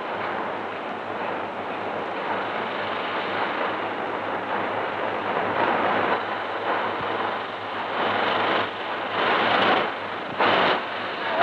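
Steady noisy din of a locomotive repair shop, with a few short, louder clangs near the end.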